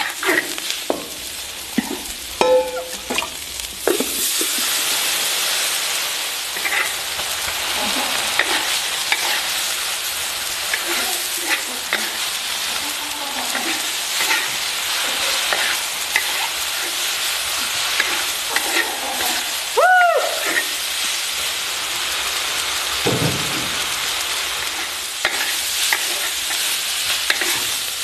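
Chopped dried pickled vegetables stir-frying in hot oil in a large iron wok: a steady sizzle, with the spatula scraping and knocking against the pan again and again. One short squeal sounds about two-thirds of the way through.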